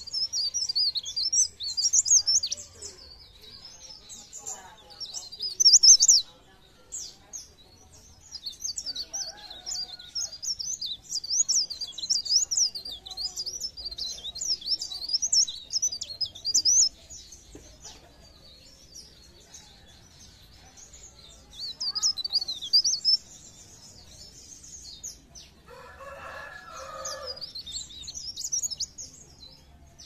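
Pare pare (cikrak daun) warbler singing in runs of rapid, high-pitched twittering chirps broken by short pauses: a lure song meant to set other birds of its kind singing. About 26 seconds in there is a brief, lower, scratchy sound.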